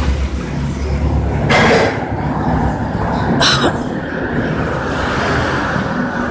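Repair-shop noise: a steady low rumble with two short hissing bursts, one about a second and a half in and one about three and a half seconds in.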